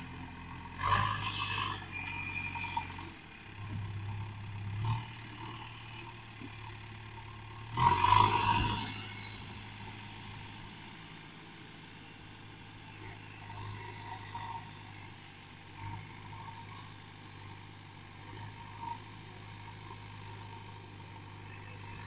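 Diesel engine of a JCB 3DX backhoe loader running steadily as the machine drives across a field, a low hum heard from a distance. Two brief louder bursts of noise break in, about a second in and about eight seconds in.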